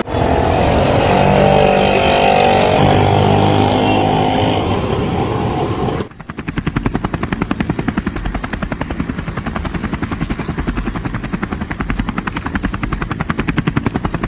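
A steady engine-like hum for about six seconds cuts off suddenly. A rapid, even helicopter rotor chop then takes over and runs on.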